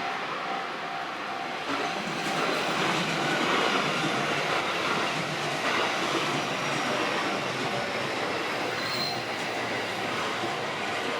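Train passing through a railway level crossing, its wheels running on the rails in a steady, sustained rush of noise.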